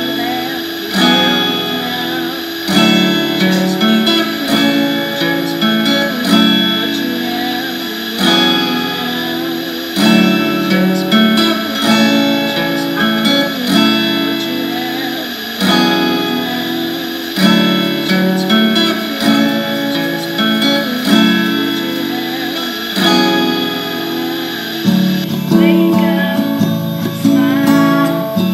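Acoustic guitar strumming chords, with a new chord about every two seconds.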